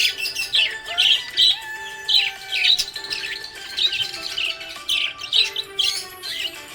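Budgerigar chirping, short high chirps repeated throughout, over background music with slow held notes.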